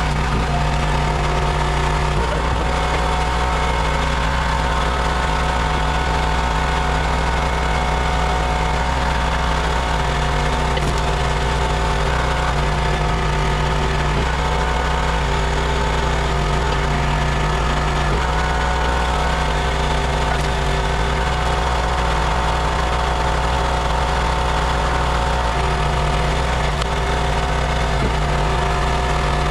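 Gas engine of a 32-ton log splitter running steadily, driving its hydraulic pump as the ram splits a large round of firewood.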